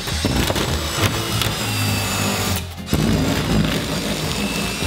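Cordless drill running at speed with a metal fidget spinner in its chuck, the spinner grinding into a sheet of styrofoam, under background music. The sound drops briefly about two and a half seconds in, then picks up again.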